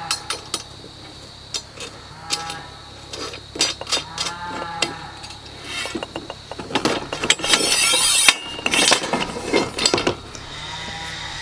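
Steel bolts, washers and nuts clinking and clicking as they are fitted on an Alaskan chainsaw mill frame, with a louder stretch of scraping metal about seven to nine seconds in. Several drawn-out calls, each about half a second long, sound in the background.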